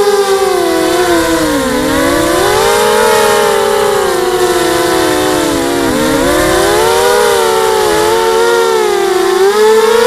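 Brushless motors and propellers of a 250-size FPV racing quadcopter whining in flight. The pitch falls and rises with the throttle, dipping low twice and climbing again near the end, with several motors sounding at slightly different pitches.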